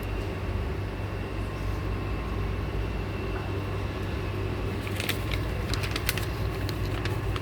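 Steady low mechanical hum with a faint high whine, like a motor or fan running. About five seconds in comes a quick cluster of short, sharp clicks.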